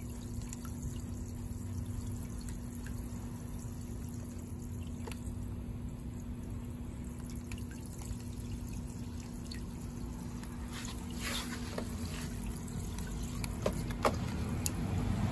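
Water from a garden hose shower nozzle spraying onto the surface of a water-filled plastic tub, a steady splashing as the tub is topped up. A few sharp clicks come near the end.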